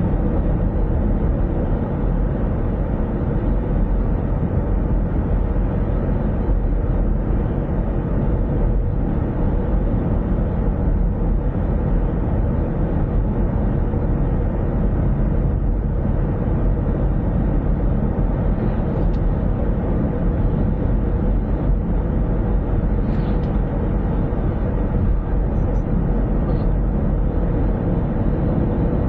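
Steady road and engine noise of a car driving at an even speed, a constant low rumble with no change in pace.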